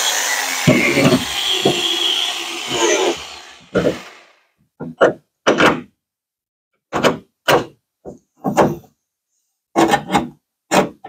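A power tool's steady whirring runs at first and winds down to nothing about four seconds in. Then a string of about ten short knocks and thuds, spaced roughly half a second to a second apart, as metal parts are knocked and worked into line at the truck bed's bolt holes.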